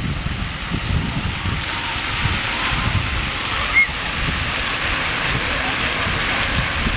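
Water-park splash pad fountains spraying and pouring water onto the play surface, a steady hiss, with a brief high squeak about four seconds in.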